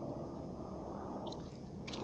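Faint music from a homemade toolbox boombox with car speakers, heard from a distance over a steady low rumble.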